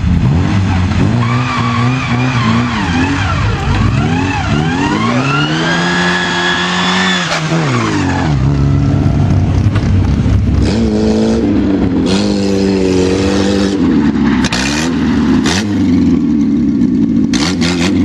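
Rally car engine revving hard, its pitch climbing and dropping again and again through gear changes, then held at high revs for the second half.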